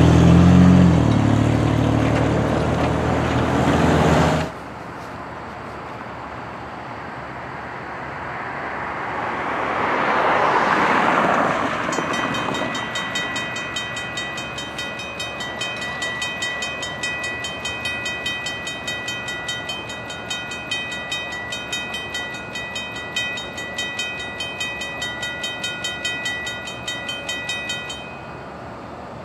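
A loud engine runs close by for the first few seconds and cuts off abruptly, then a road vehicle passes. About twelve seconds in, the railroad crossing bell starts ringing in quick, even strokes, and it stops near the end as the gates come down.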